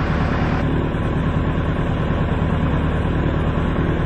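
Piper Super Cub's engine running steadily on the ground with the propeller turning, a constant low drone. A hiss over it cuts off just over half a second in.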